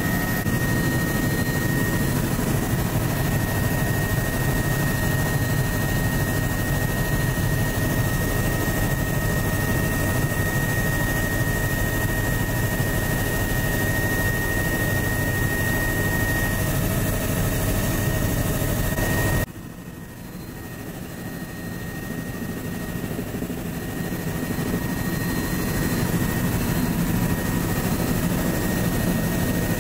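Helicopter in flight heard from aboard with the doors off: a steady, loud din of rotor and engine with rushing wind, and a thin high whine running through it. About two-thirds of the way through the noise suddenly drops away, then builds back up over several seconds.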